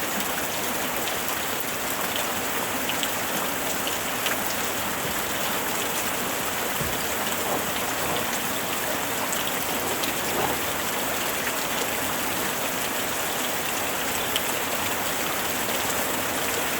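Steady light rain falling, a constant even hiss with scattered small drop ticks and no thunder.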